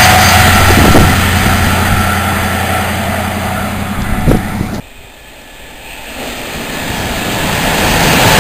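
The rushing noise of a train passing through at speed fades away with a low hum and cuts off abruptly a little past halfway. The rush of the next intercity express approaching at speed then builds steadily, loudest at the end.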